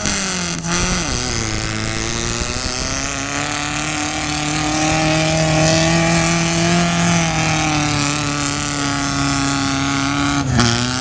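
A mud-bog 4x4 truck's engine running hard through a mud pit: it revs up and dips in the first second, then holds at high, steady revs, falling away about ten and a half seconds in.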